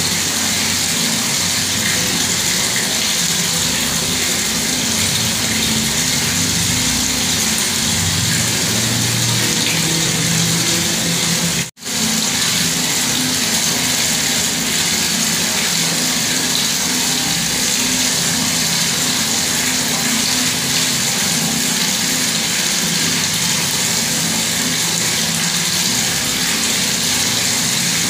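Bathroom tap running steadily, water pouring and splashing in an even rush. The sound drops out for an instant about twelve seconds in.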